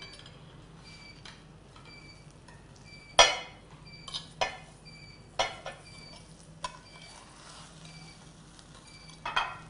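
Metal serving utensil scraping and clinking against a glass baking dish and a china plate as a baked fish is slid out onto the plate: a handful of sharp scrapes and clinks, the loudest about three seconds in.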